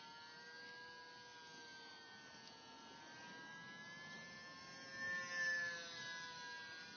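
Motor and propeller of an RC Icon A5 model seaplane in flight: a faint, steady buzzing whine whose pitch wavers gently. It swells louder about five seconds in as the plane passes close.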